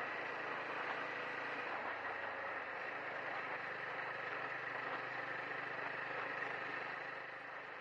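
TVS Apache RTR 200 4V's single-cylinder engine running steadily while the motorcycle is ridden over a dirt road, mixed with a steady rush of wind and tyre noise. It eases off slightly near the end.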